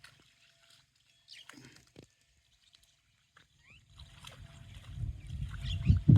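Water sloshing and splashing as Kundi water buffalo move through water, quiet at first with a few faint clicks, then building and getting louder over the last two seconds.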